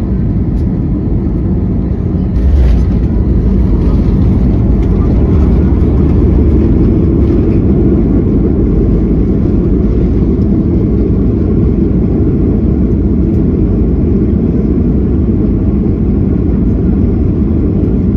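Cabin noise of a Southwest Airlines Boeing 737 landing: a thump about two and a half seconds in as the main wheels touch down, then a louder rumble of tyres and engines for several seconds as the jet decelerates with its spoilers up, settling into a steady roll-out rumble.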